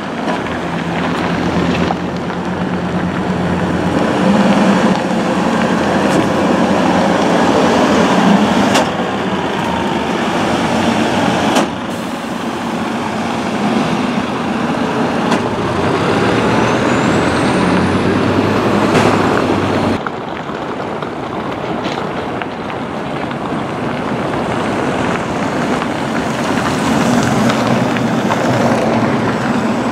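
City buses driving past on a snowy street, their engines running with a steady hum and tyre noise. There are two sharp clicks in the first half and a high whine that rises and falls a little past the middle. After a short dip, a second bus pulls away close by.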